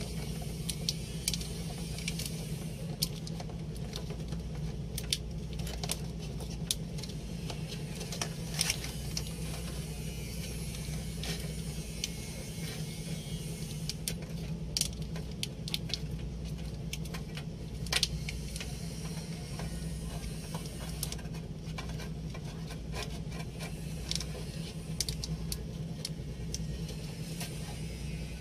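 Light clicks and small rattles at irregular intervals from handwork on car wiring, over a steady low hum.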